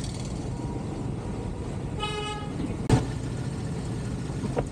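Steady road traffic and engine noise, with a vehicle horn tooting once for about half a second around two seconds in. A sharp click follows just after.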